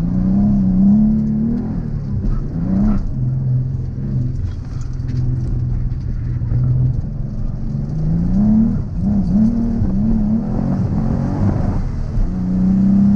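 Twin-turbocharged Nissan 350Z's V6 engine, with a 3-inch true dual exhaust, driven hard. Its pitch climbs under throttle and drops back several times, with a steadier lower stretch a few seconds in and a climb again near the end.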